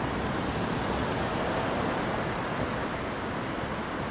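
Steady road-traffic noise, an even hiss and rumble with no distinct events.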